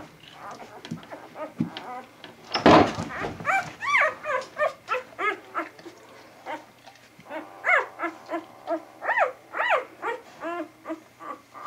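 Newborn vizsla puppies squeaking and whimpering: many short, high, rising-and-falling cries, several a second. A brief loud burst of noise comes about two and a half seconds in.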